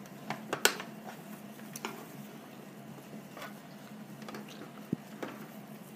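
Scattered small clicks and soft rustling from hands threading pipe cleaners into a styling doll head's hair, several quick clicks in the first second and a few more spread out after, over a faint steady hum.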